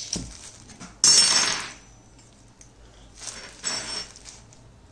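Miniature brass kitchen tongs clinking as they are handled: one sharp metallic clink about a second in that rings briefly, then two lighter clinks a little past the middle.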